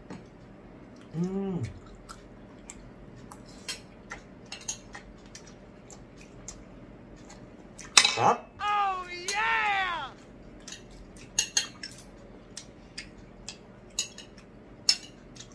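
Metal spoons and forks clinking and scraping on ceramic plates while eating, in scattered short clicks. A brief hum about a second in, and a longer, higher-pitched vocal sound from about eight to ten seconds in.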